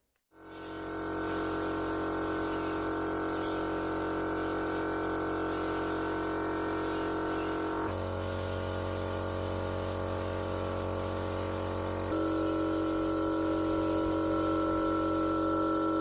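Background music: sustained held chords that fade in at the start and change twice, about halfway through and again about three-quarters of the way through.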